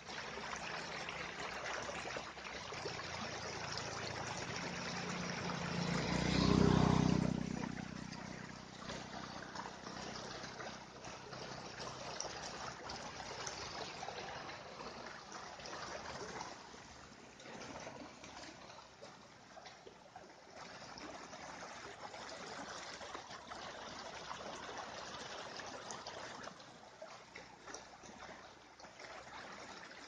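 Water running over rocks and along a small stream, a steady rushing splash that grows quieter after the midpoint. A low rumble swells and dies away about six to seven seconds in.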